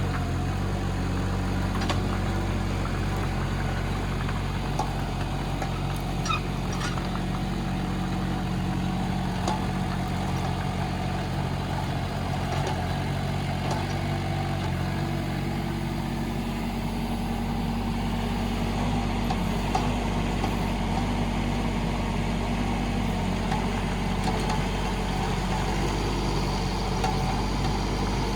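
Kubota K008-3 mini excavator's three-cylinder diesel engine running steadily while the machine is worked, its note changing about halfway through.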